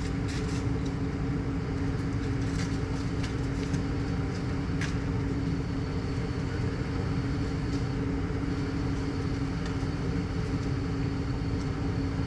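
Steady mechanical hum at a constant pitch, with a few light clicks in the first seconds.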